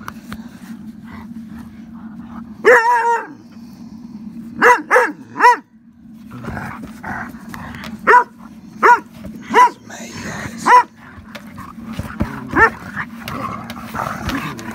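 Dog barking in short, high barks, about ten of them, singly and in quick runs of two or three, with a longer wavering bark about three seconds in.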